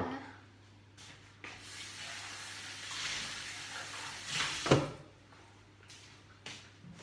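A soft, steady hiss for about three seconds, swelling near the end, cut off by a single knock; kitchen handling noise.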